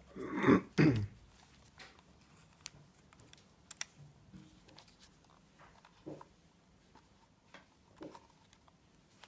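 Small scattered clicks and handling noises from fingers working the metal body of a vintage film camera as it is closed up after loading film, with one brief louder sound about half a second in.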